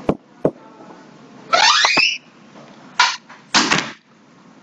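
Two sharp clicks, then a loud rising swoosh and two short hissing bursts: slide-animation sound effects as a new heading comes on screen.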